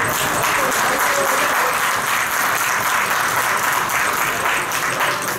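Audience applauding: a steady patter of many hands clapping that dies away near the end.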